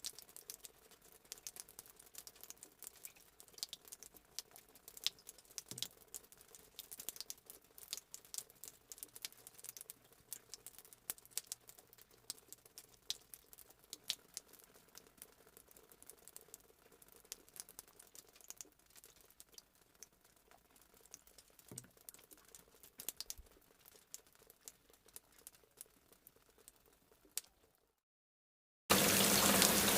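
Light rain: scattered raindrops pattering as many small, sharp ticks at an uneven pace. Near the end it stops dead for about a second, then a much louder, steady wash of noise cuts in.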